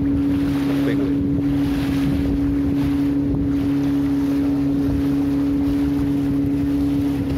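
An engine running at a steady speed, with wind noise on the microphone.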